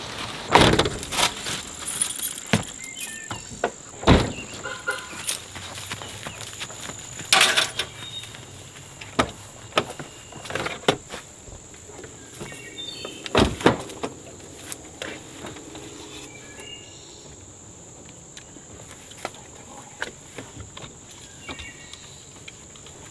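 Scattered knocks and thunks of someone rummaging in a pickup truck's open cab, a few sharp ones standing out, with footsteps on grass. A steady high insect drone runs underneath.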